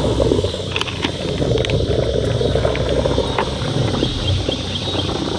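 Electric trolling motor running with a steady low hum, with light clicks from the fishing line and foam jugs being handled.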